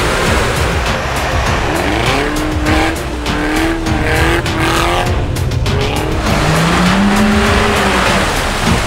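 Off-road 4x4 engine revving hard, its note climbing and falling again and again as it works through the mud, with music playing underneath.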